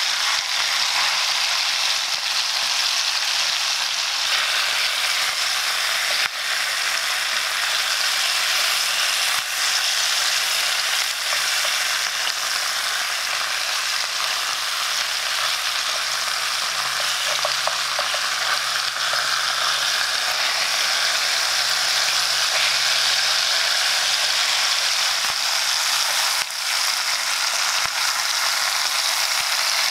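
Pork ribs sizzling steadily as they sear in a hot enamelled cast-iron pan, with occasional light clicks and scrapes of metal tongs turning the pieces.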